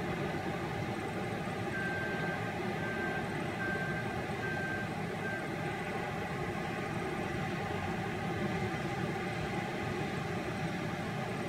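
Diesel engine of a CAT 972M wheel loader running steadily, with its reversing alarm beeping five times in a single high tone from about two seconds in as the loader backs away from the sand pile.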